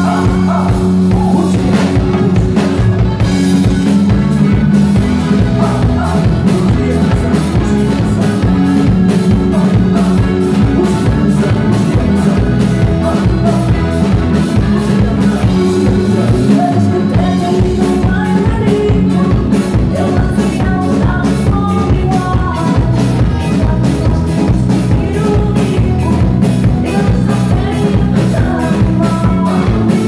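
Live band playing a loud, upbeat song with a steady drum-kit beat, accordion, electric guitar and singing.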